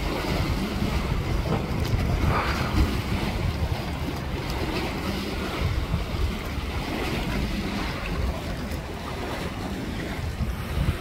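Wind buffeting a phone microphone: an uneven low rumble throughout.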